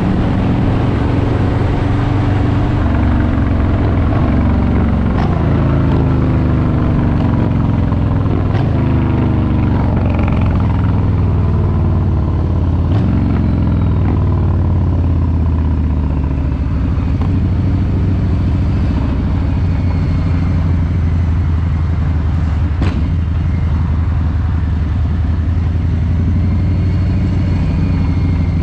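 Harley-Davidson Street Bob 114's Milwaukee-Eight 114 V-twin running on the road. Its pitch slides down and steps several times in the first half as the throttle and gears change, then holds steadier.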